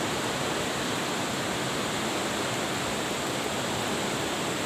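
Steady rushing of a river's flowing water, an even, unbroken hiss.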